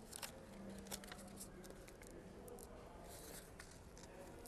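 Faint handling of paper craft pieces: a few soft ticks and a short rustle about three seconds in, as paper, ribbon and glue are worked by hand.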